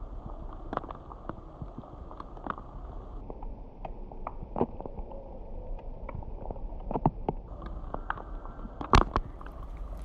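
Rain falling: a steady muffled hiss with irregular drops striking close by, the sharpest about nine seconds in.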